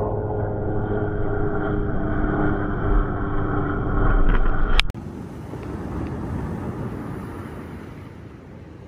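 Steady outdoor rumble with a faint hum, changing abruptly about five seconds in to a quieter, hissier wash of open-air noise.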